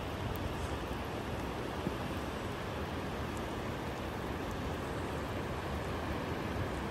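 A steady rushing noise of rain and distant falling water, with a few faint high ticks.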